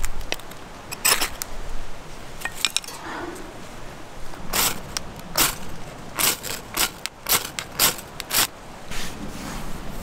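About a dozen irregular sharp clinks and taps of small hard objects being handled, most of them in the second half.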